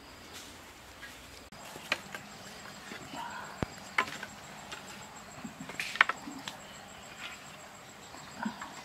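Scattered sharp clicks and knocks of sticks and firewood being handled. A faint, steady, high-pitched insect drone starts about a second and a half in.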